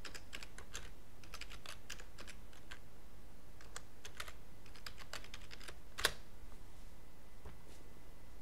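Computer keyboard typing: two runs of quick keystrokes with a short pause between them, then one louder click about six seconds in.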